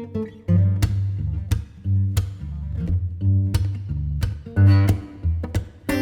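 Background music: acoustic guitar playing a run of plucked notes over low bass notes.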